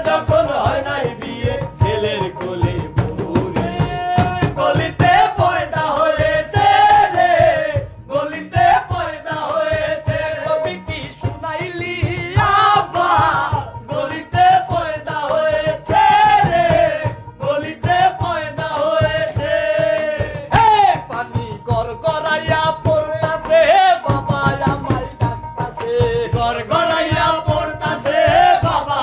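Man singing a song loudly, accompanying himself on a hand-played wooden barrel drum beating a quick, steady rhythm.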